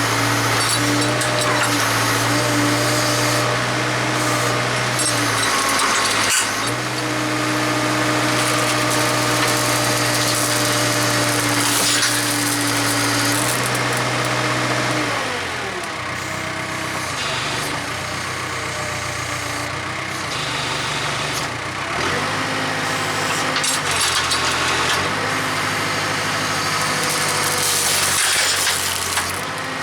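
Backhoe engine running hard under load as it pulls on a chained, stuck tractor tire. It is held at high speed with a brief dip about six seconds in, drops to a lower speed about halfway through, then steps between speeds.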